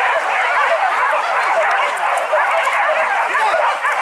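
A pack of hunting dogs barking and yelping together as they run, many voices overlapping in a dense, unbroken chorus.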